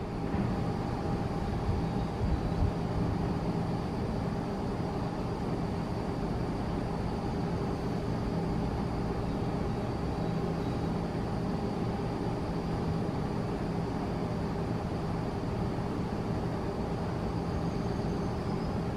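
Steady low mechanical hum with a few held tones, unchanging throughout.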